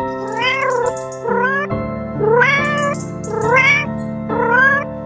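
Domestic cat meowing five times, each meow rising and then falling in pitch, over background music.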